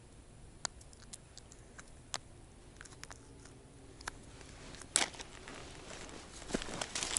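Faint scattered clicks and ticks of a crucian carp being handled and unhooked by hand. A sharper click comes about five seconds in, followed by rustling of dry reeds and clothing near the end.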